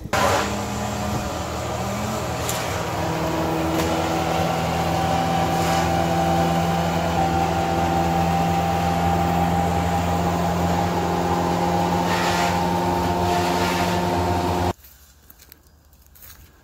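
Wood chipper's engine running at a steady speed, with a few brief rasping sounds over it. It cuts off abruptly near the end.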